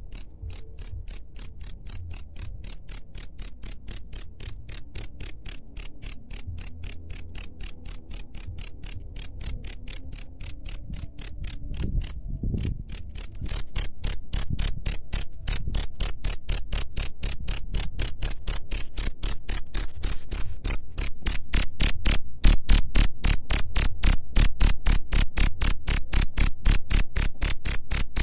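Cricket chirping steadily in short, high, evenly spaced chirps, about three a second. There is a brief break a little before the middle, and the chirps come louder after it.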